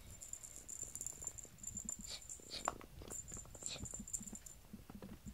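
Faint rustling and small clicks of cats moving around a feather teaser toy on foam floor mats, with one short rising squeak about halfway through.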